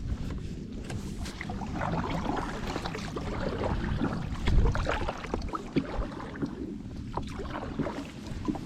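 Wind buffeting the microphone and water lapping and sloshing against a small boat's hull, with a heavier low bump about four and a half seconds in.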